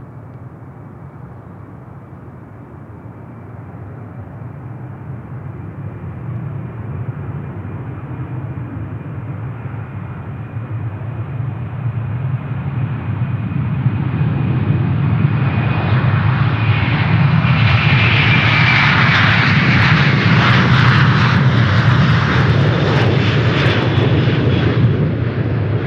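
Large jet airliner's engines approaching and passing close by: a steady high fan whine over a low rumble, growing louder to a peak about three-quarters of the way through, the whine dropping slightly in pitch as it goes past.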